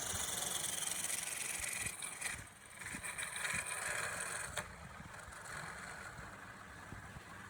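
Wood lathe running while a cutting tool shaves the spinning wood with a loud hiss. The cutting stops about four and a half seconds in, leaving the lathe running more quietly.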